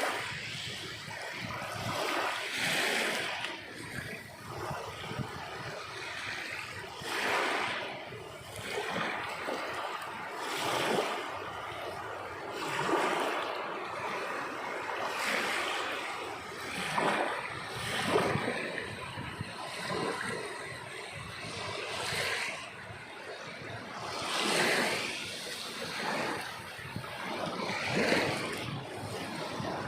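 Sea waves breaking and washing up a shore, one after another every few seconds.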